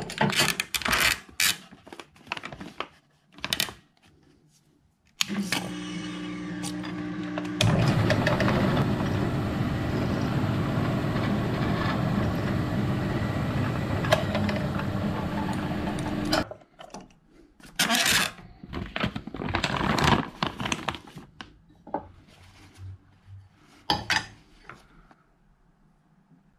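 Palmgren bench drill press motor starts about five seconds in with a steady hum; a couple of seconds later the center drill cutting into the stone pipe block under water coolant adds a loud, steady hiss, until the press stops about two-thirds of the way through. Before and after, clatter and clicks of tools being handled at the machine.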